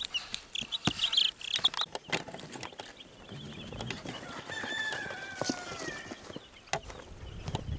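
Wyandotte bantam chicks peeping in a cardboard box as it is carried, with bumps and knocks from the handling. About halfway through comes a longer call that falls in pitch, from a bird in the yard.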